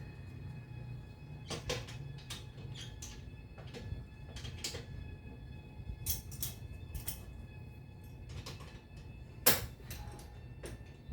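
Irregular light knocks and clicks of objects being handled, with one louder knock about nine and a half seconds in, over a steady low hum and faint high steady tones.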